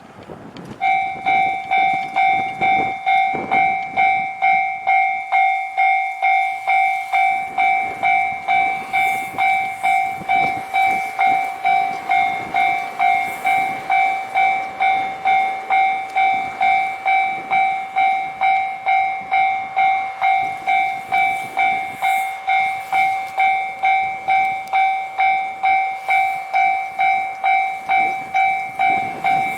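Japanese railway level-crossing warning bell ringing, an electronic ding repeated evenly about twice a second, starting about a second in: the crossing's signal that a train is approaching.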